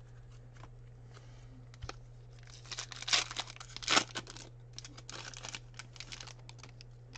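A foil wrapper on a pack of Fleer Ultra basketball cards being torn open and crinkled by hand, in a few sharp rips, loudest about three and four seconds in, with more crinkling just after.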